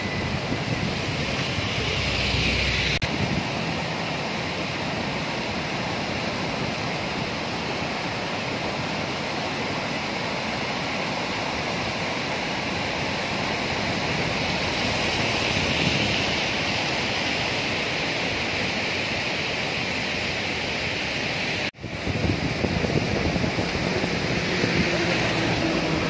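Swollen river in flood, its muddy water rushing and churning in a steady, loud rush. A momentary dropout breaks it about three-quarters of the way through.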